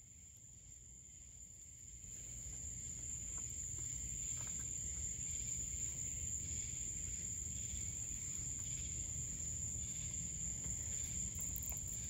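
Annual cicada buzzing, its tymbals vibrating to make a steady, high-pitched drone that grows louder about two seconds in and then holds.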